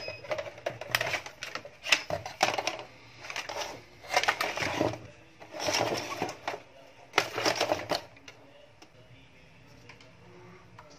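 Inverter circuit board being handled and turned over on a concrete bench: several bursts of clattering and scraping, stopping about eight seconds in.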